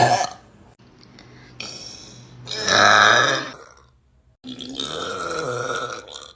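A person belching in a run of separate burps: a short one about one and a half seconds in, the loudest about two and a half seconds in, and a long drawn-out one lasting nearly two seconds near the end.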